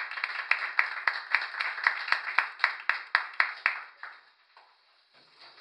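Small audience applauding, the claps falling in an even rhythm of about four a second and dying away about four seconds in.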